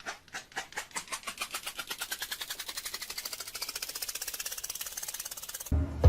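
Rapid clicking that speeds up steadily from a few clicks a second to a fast rattle, then stops suddenly near the end.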